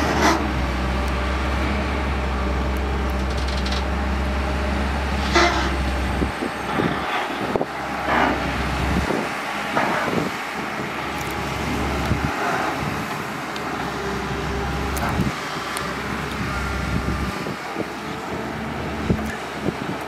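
Caterpillar 320CL long-reach excavator's diesel engine running as it works, with a low rumble that drops away and comes back several times. A few short knocks sound over it, the loudest at the start and about five seconds in.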